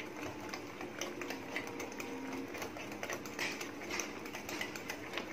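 Wire whisk beating a thick semolina cake batter in a bowl: a fast, uneven run of light clicks as the wires strike the bowl.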